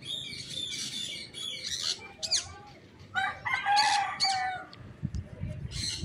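A rooster crowing once, a drawn-out call of about a second and a half starting about three seconds in, with small birds chirping in quick high bursts around it.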